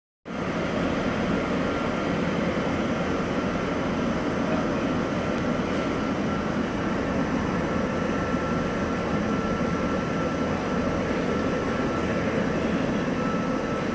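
Vertical wind tunnel running at flying speed: a constant rushing of fan-driven air with a thin steady whine above it.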